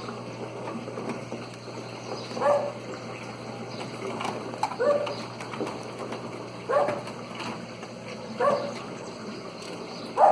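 A dog barking in single short barks, five in all, about two seconds apart.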